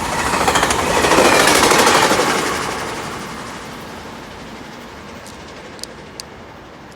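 A train rolling past, its wheels clattering on the rails, loudest about one to two seconds in and then fading as it moves away.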